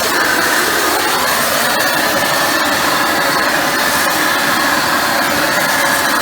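Pressure-washer steam cleaner spraying, a loud steady hiss of the jet with no break.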